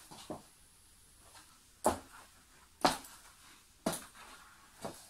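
Footsteps walking slowly, four distinct steps about a second apart starting about two seconds in, with a fainter knock just after the start.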